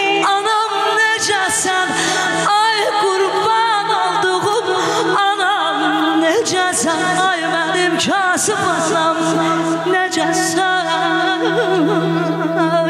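A woman singing Azerbaijani mugham through a microphone, her voice running through ornamented melismas with fast, wide trills. A steady low drone is held under the voice.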